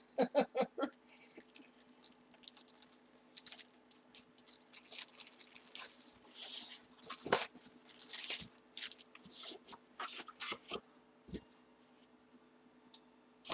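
Plastic packaging crinkling and a cardboard box being handled, in scattered short rustles and clicks over a faint steady low hum.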